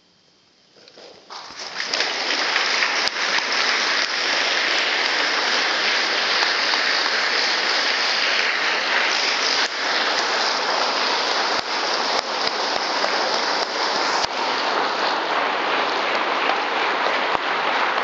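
Audience applause after an orchestral piece ends: it breaks out about a second in and quickly builds to steady, dense clapping that fills the hall.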